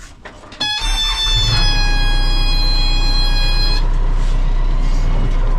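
Backhoe's diesel engine starting up and settling into a steady idle. A high-pitched warning buzzer sounds with it for about three seconds and then cuts off.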